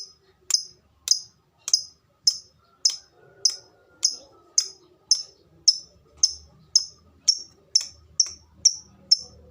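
Lovebird giving its sharp, high 'tik' calls, evenly spaced at about two a second and quickening slightly near the end. This is the ticking phase that keepers prize in a 'fighter' lovebird before it breaks into its long 'ngekek' chatter.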